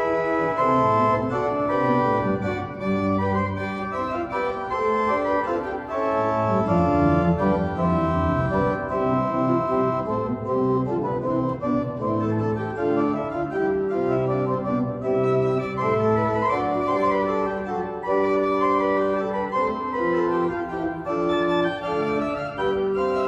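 Cathedral pipe organ playing music in several parts: held notes and chords with moving lines above low bass notes, at an even volume.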